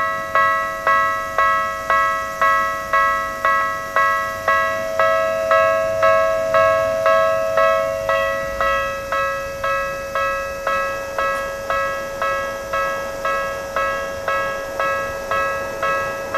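Japanese railway level-crossing warning bell ringing steadily, about two strikes a second, each strike ringing out before the next: the crossing's alarm for an approaching train.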